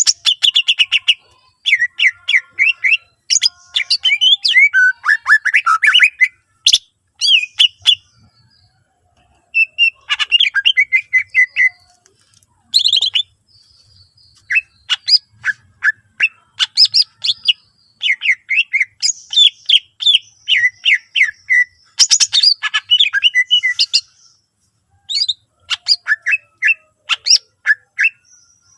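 Greater green leafbird (cucak ijo) singing a loud, fast, varied song of chirps, sweeping whistles and trills in bouts with short pauses. The song is packed with mimicked calls of other birds.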